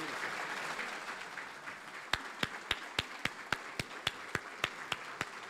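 Audience applause dying away, then steady sharp hand claps, about four a second, from about two seconds in.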